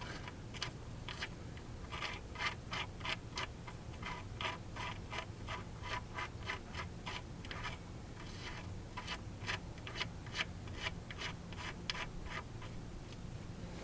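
Faint, repeated metallic clicks and scrapes, a few a second with short pauses, as the screw of a seal-puller tool is turned to pull the old gear shift seal out of the transmission.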